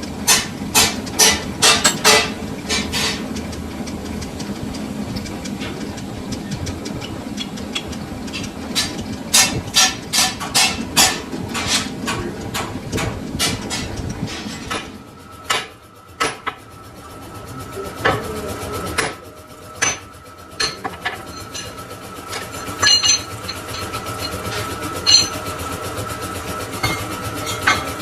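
Sharp metal-on-metal knocks, like hammer blows, in quick clusters over the steady hum of shop machinery. About halfway through, a steady high whine from a running machine such as the lathe sets in, with a few more scattered knocks.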